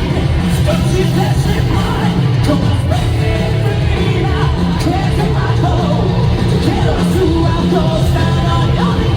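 Live rock band playing loud, steady music with singing over it, recorded from the audience.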